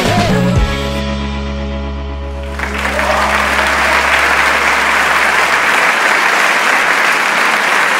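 The backing track's final chord is held and fades away, while an audience breaks into applause about three seconds in and keeps clapping.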